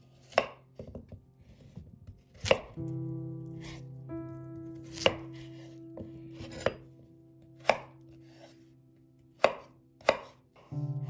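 Kitchen knife chopping peeled raw potatoes on a wooden cutting board: about seven sharp chops, spaced a second or two apart.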